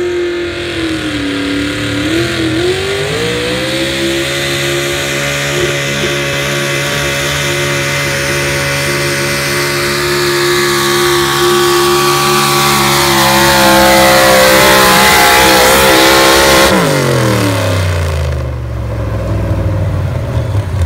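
Pulling pickup truck's engine at full throttle dragging a weight-transfer sled. It climbs in revs a couple of seconds in, holds high and steady, and gets louder near the end of the run. About seventeen seconds in the throttle is cut and the engine drops to a low idle.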